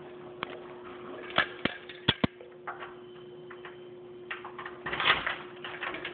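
A few sharp clicks, then a key rattling and scraping in a brass doorknob lock as the knob is jiggled, about four to five seconds in.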